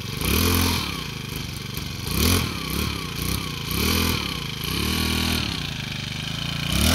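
Brush cutter's small petrol engine running and being revved up and down about five times, its pitch rising and falling in arcs a second or two apart. It is being warmed up just after starting.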